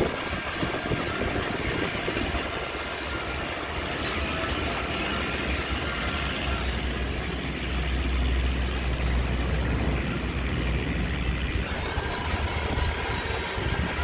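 Small crawler bulldozer's diesel engine running steadily; its low engine note grows stronger a little past the middle, then eases.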